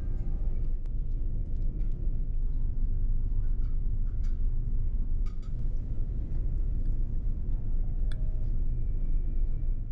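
Steady low rumble of a large ferry under way, its engines and hull vibration carrying into the dining room, with a few light clinks of a metal fork against china plates.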